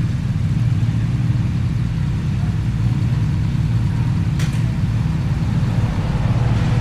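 An engine running steadily with a constant low drone. A single sharp click is heard about four and a half seconds in.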